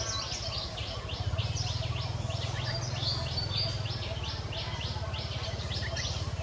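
Rapid, repeated high-pitched bird chirps, several a second, with a brief held whistle note about three seconds in, over a low steady hum that gets louder about a second in.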